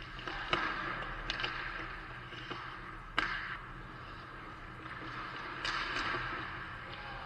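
Ice hockey skates scraping and hissing on the rink ice, with a few sharp clacks of sticks and puck, the loudest about three seconds in, over a steady low hum.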